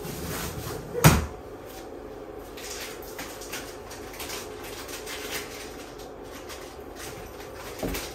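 Cats moving about a cardboard scratching house. There is a sharp, loud knock about a second in, then scattered short scratching and rustling strokes, and a softer thump near the end.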